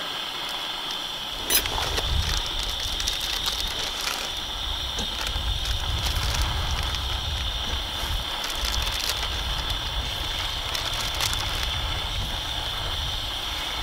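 Hot dogs sizzling in a frying pan on a propane camp stove: a steady high-pitched hiss with scattered small crackles and clicks, under a low rumble that comes in about a second and a half in.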